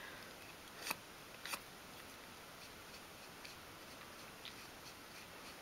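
Quiet room tone with two light clicks less than a second apart near the start and a fainter tick later on.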